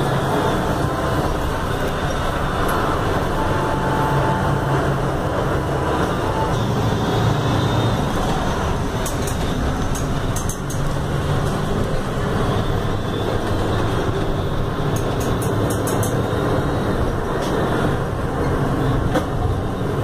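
Steady ride noise inside a moving city bus: the Mercedes-Benz OF-1519 chassis's front-mounted diesel engine running, with road and body noise and a few short clicks.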